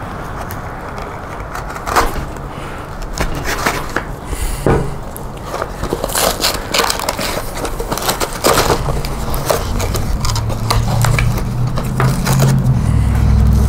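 A mailed cardboard package being opened by hand: irregular tearing, crinkling and scraping of the box and its packing. A low rumble builds over the last few seconds.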